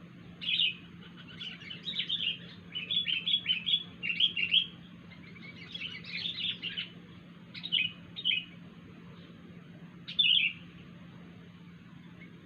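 Sooty-headed bulbul (kutilang) calling in short bursts of chirpy notes. There are several quick phrases in the first eight seconds and one more about ten seconds in, over a faint steady low hum.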